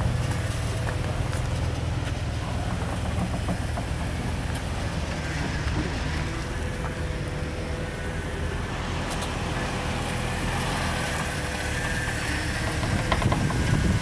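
Off-road vehicle engine running steadily at low speed, with scattered small clicks and knocks. It grows a little louder near the end.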